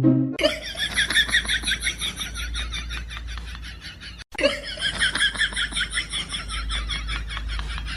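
High-pitched laughter, a fast run of short repeated pulses, cut off sharply about four seconds in and starting again straight after.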